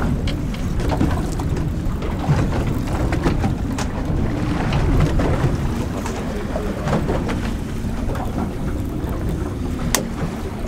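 Wind buffeting the microphone and water slapping against the hull of a small boat at sea, with scattered sharp clicks and knocks.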